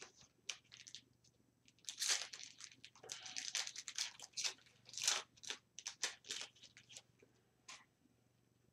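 A hockey card pack wrapper being torn open and crinkled by hand: a run of crackling, tearing rustles, thickest in the middle, that stop near the end.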